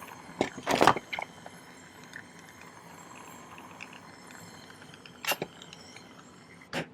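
A sterling silver chain being handled, its links clinking and rattling: a quick cluster of clinks about half a second in, then single clinks around five seconds in and just before the end.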